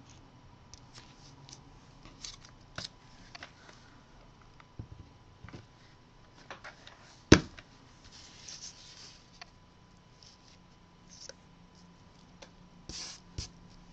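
Paper cutouts being handled and pressed onto a cutting mat: scattered soft rustles and light taps, with one sharp, louder click about seven seconds in.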